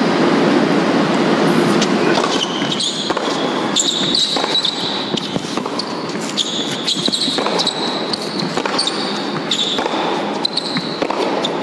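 Crowd applause for the first couple of seconds, then a tennis point on an indoor hard court: sharp racket strikes and ball bounces, with high sneaker squeaks on the court surface between them.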